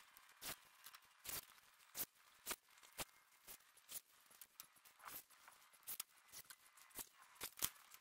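A faint series of sharp clicks and taps, roughly two a second at uneven spacing, with near silence between them.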